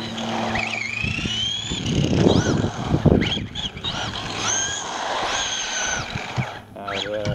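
Electric motor and drivetrain of a 6S RC buggy whining as it drives, the pitch rising and falling as the throttle is worked and holding high and steady for about a second near the middle. Rough tyre noise on asphalt joins around two to three seconds in.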